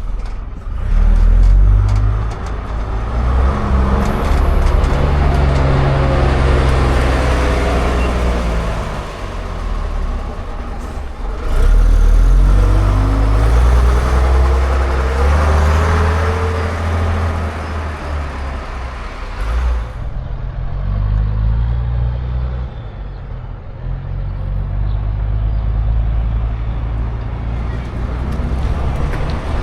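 Classic diesel bus engines running loud and pulling away, the engine note rising as they accelerate and dropping back at gear changes, twice over; a lower, steadier engine rumble follows in the later part.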